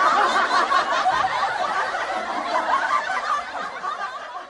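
Audience laughter: many people chuckling at once, slowly fading out near the end.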